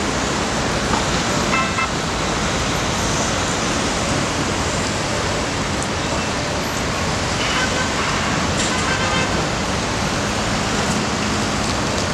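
Steady city traffic noise from the street below, with a few short high-pitched tones about a second and a half in and again around eight seconds.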